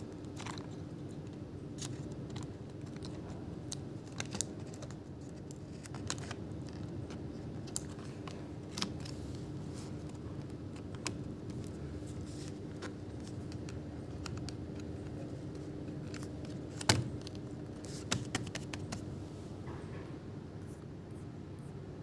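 Sparse clicks and taps from a laptop being handled, its keys and case pressed and tapped, with one sharper knock about 17 seconds in and a short cluster of clicks just after, over a steady low hum.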